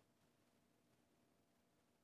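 Near silence: faint room tone with no distinct sound.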